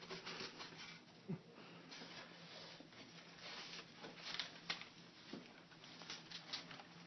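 Faint rustling and scattered light clicks of things being handled, a few sharper ticks past the middle, over a steady low hum.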